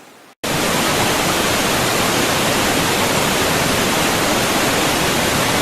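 Steady, loud rushing storm noise from tropical storm Enrique's wind and water, cutting in abruptly about half a second in after a brief silence.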